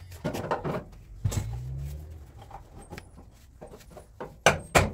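Scattered light knocks and clicks of work on a car body, then two loud, sharp hammer blows on metal close together near the end.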